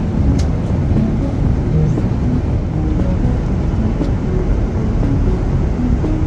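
Steady cabin noise of an airliner in cruise: an even low rush of engine and airflow noise.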